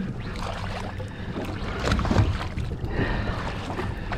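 Wind and water noise on a small boat while a spinning reel is wound in, retrieving a hooked coral trout, with a thump about two seconds in.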